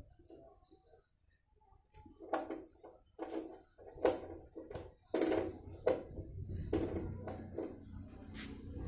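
A string of sharp metallic clinks and knocks, about eight over six seconds, from hand work on a front shock absorber strut being fitted into the wheel arch. A low hum runs underneath from about halfway.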